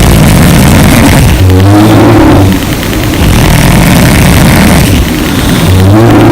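Loud human snoring: a rattling snore on an in-breath about a second and a half in and again near the end, with a rough, breathy out-breath between.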